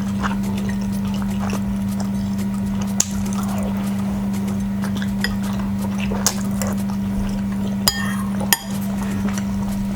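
Eating at a plate of chapati and beef stew: a few sharp clinks of utensils against the dish, about four in all, the last two close together near the end, over a steady low hum.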